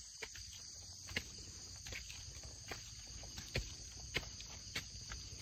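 Footsteps in flip-flops climbing stone steps, a sharp slap roughly every three-quarters of a second, over a steady high insect chirring.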